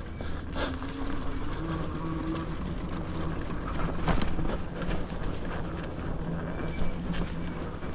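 E-bike riding along a trail: the Bafang G62 hub motor's steady low hum under a VESC controller, over rolling tyre and frame rattle with scattered clicks.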